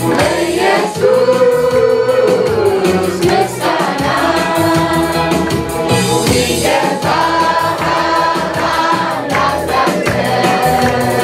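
A children's choir sings a gospel song together, holding long notes, over a steady beat.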